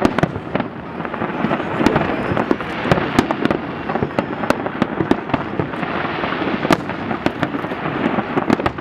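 Fireworks display: a dense, continuous barrage of bangs and crackles, many reports overlapping over a steady din.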